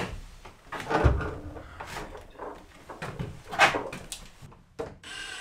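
Clunks and knocks of a refrigerator door being handled and fitted: a string of separate short knocks and thuds, with no steady sound between them.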